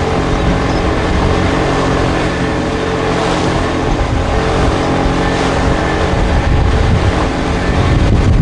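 Motorboat engine running steadily, with wind and water noise over it.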